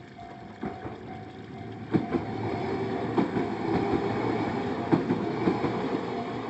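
A Kintetsu Yoshino Line train passing over a level crossing, getting louder about two seconds in, its wheels clacking over the rail joints several times. The crossing's warning bell keeps ringing in a steady repeating tone underneath.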